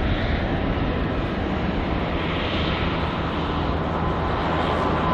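Jet engines of a Boeing 787-9 airliner at takeoff thrust as it lifts off and climbs out: a steady, deep rushing rumble, growing slightly louder near the end.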